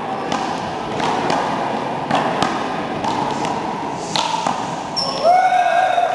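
One-wall handball rally: the small rubber ball smacks off the wall and the players' hands in sharp, irregular slaps, echoing in a large hall. A drawn-out squeal rises near the end.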